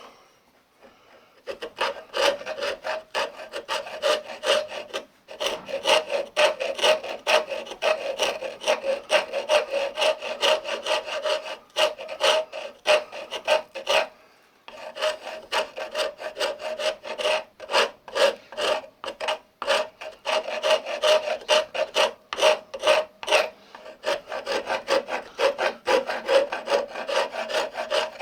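Rasp file scraping a wooden axe handle in quick repeated strokes as the handle is shaped down. The strokes start about a second and a half in and stop briefly around the middle.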